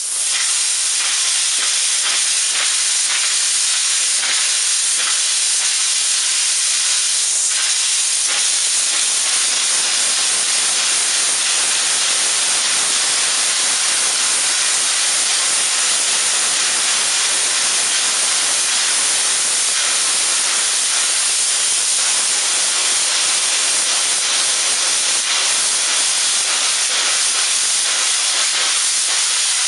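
Steam blowing out hard through an opened valve on a small 3-inch model boiler at about 60 psi: a loud, steady hiss that holds without letting up.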